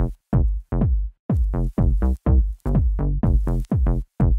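Background electronic music: short chopped synth notes, each sliding down in pitch, in a quick stop-start rhythm.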